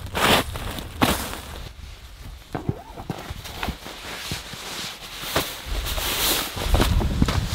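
Camping gear being handled: a foam sleeping pad pressed down and a sleeping bag pulled out of its nylon stuff sack, giving irregular rustling and soft knocks. The rustle thickens near the end.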